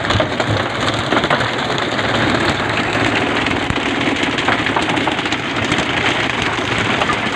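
Fishing boat's engine running under a steady hiss of splashing water, with scattered knocks and taps.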